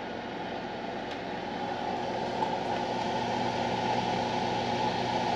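Steady fan whir from a wall oven preheated to 350 with its door open, growing gradually louder.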